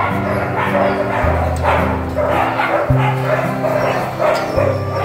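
Dogs, huskies, barking and yipping in short repeated bursts over background music with a steady low bass line.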